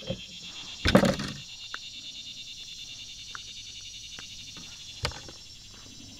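Steady, high, pulsing drone of summer insects. Over it, a loud knock comes about a second in and a lighter click about five seconds in, from handling a small bass in a kayak.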